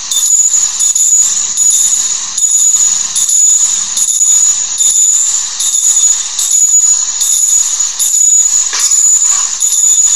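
Altar bells (a cluster of Sanctus bells) shaken repeatedly in a steady rhythm, about three shakes every two seconds, with a bright, high jingling ring. This is the ringing for the elevation of the chalice at the consecration.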